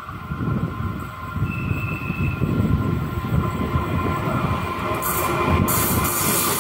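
Diesel-hauled freight train approaching, the locomotive's engine rumble growing steadily louder as it nears. A thin steady squeal from the wheels on the curve runs over it.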